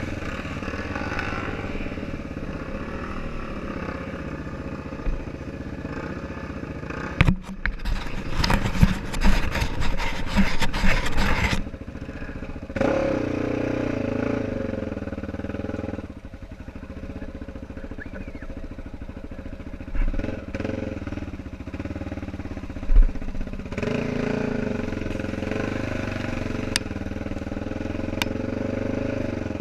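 ATV engine running under way, its pitch rising and falling with the throttle. About seven seconds in comes a stretch of loud clattering and crackling lasting several seconds, and later there are a couple of short thumps.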